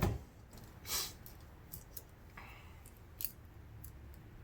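Small handling sounds of 3M white adhesive tape being worked on a phone's battery bay: a short rasp about a second in, a longer scrape at about two and a half seconds, and a few light clicks.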